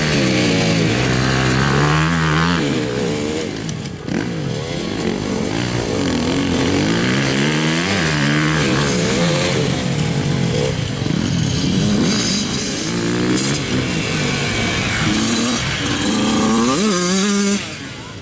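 Dirt bike engines revving up and down over and over as the bikes accelerate and ease off around a motocross track, the pitch rising and falling many times. The engine sound drops off suddenly near the end.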